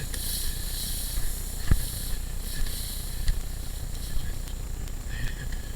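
Rustling and wind noise on a head-mounted camera's microphone, with one sharp thump a little under two seconds in.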